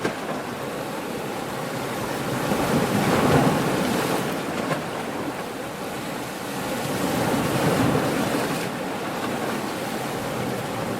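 Ocean waves surging and washing in: a steady rush of surf that swells twice, about three seconds in and again near eight seconds.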